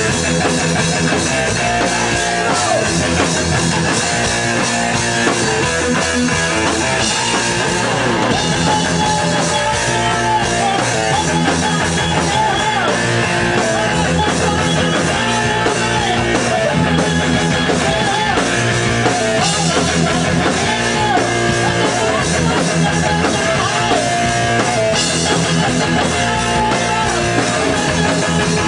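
Rock band playing an instrumental passage: electric guitar and drum kit, with a short melodic figure repeating over and over.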